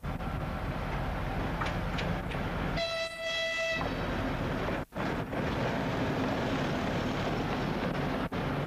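ST44 (M62) diesel locomotive's two-stroke V12 engine running as it passes close by, with one horn blast of about a second, a single steady tone, about three seconds in. The sound drops out briefly just before the five-second mark.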